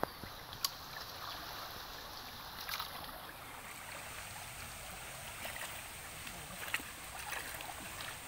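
Shallow stream water running and rippling over rocks and debris, a steady rush. A few sharp clicks in the first second, with fainter ones later.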